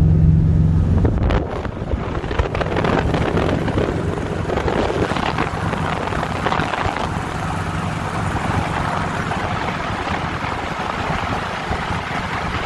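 ZAZ-965 Zaporozhets under way: for the first second and a half its air-cooled V4 engine drones steadily, heard from inside the cabin. It then gives way to steady wind rushing over the microphone, mixed with tyre and road noise, from outside the moving car.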